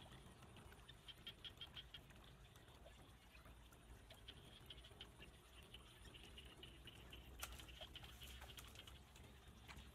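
Faint field ambience: rapid trains of short, high chirps come and go, with a few soft clicks and one sharper click about seven and a half seconds in.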